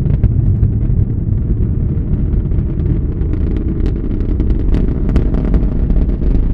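Launch roar of a SpaceX Falcon Heavy and its 27 Merlin engines, heard from about three miles away: a deep, loud, continuous rumble with sharp crackles that grow stronger about four seconds in.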